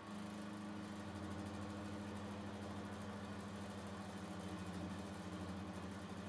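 Thojomech TFC11 CNC mill cutting aluminium with a 12 mm four-flute end mill under flood coolant: a steady low hum from the spindle and cutter, with a hiss over it. It grows louder at the very start and then holds steady.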